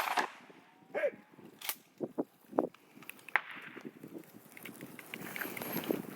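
A shotgun shot right at the start, followed by scattered sharp clicks and knocks over the next few seconds.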